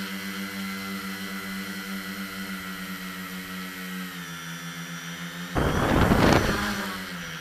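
Multicopter's electric motors and propellers humming steadily in flight, heard from the onboard camera. About five and a half seconds in, a loud rushing burst lasts about a second and a half before the steady hum returns.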